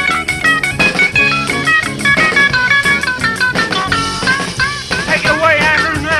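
Rock and roll band on a 1978 cassette recording, playing a lead guitar break of quick single notes over bass and drums. In the last second or so the lead turns to wavering, bending notes.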